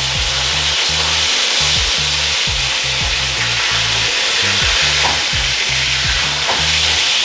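Food frying in hot oil in pans on a stove, a steady loud sizzle.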